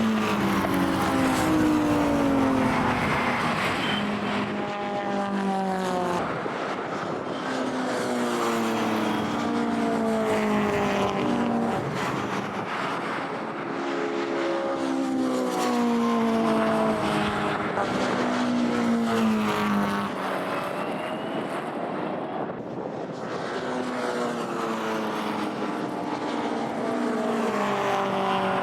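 Classic racing cars' engines at full throttle on a circuit, climbing in pitch and breaking off as they shift up through the gears. Several cars run past in close succession, one after another, about four times over.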